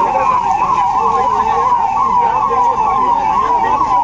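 Electronic siren sounding in a fast yelp, its pitch sweeping up and down about three times a second without a break.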